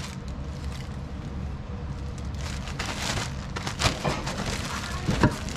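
A clear plastic bag wrapped around a cone air filter crinkling and crackling as it is handled, picking up after about two seconds, with a few sharp clicks, over a steady low hum.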